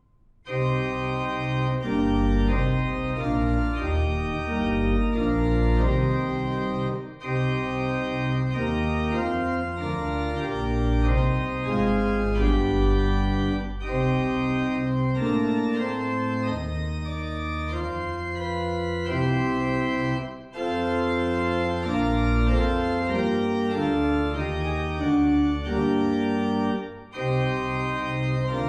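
Organ playing a hymn tune in full sustained chords over a deep bass line, with brief breaks between phrases.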